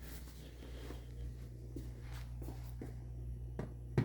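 Faint clicks and scrapes as a unit is worked out of a Ricoh Aficio SP 5210SR laser printer, with a sharper knock near the end, over a steady low hum.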